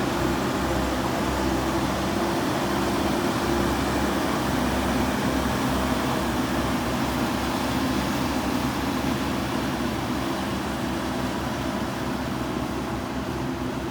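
Diesel engine of a JCB 3DX backhoe loader running steadily under work, with a low hum and an even pulsing throb, easing off slightly near the end.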